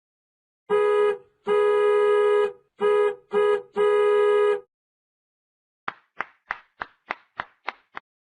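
Two comedy sound effects in a row. First, five flat, steady, organ-like or horn-like honks in an uneven rhythm. Then, after a short gap, about eight quick blips, each dropping in pitch.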